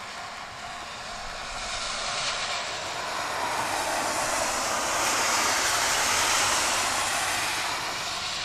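Kiha 40 diesel railcar passing by, its engine and wheels on the rails growing louder to a peak about five to six seconds in, then fading away.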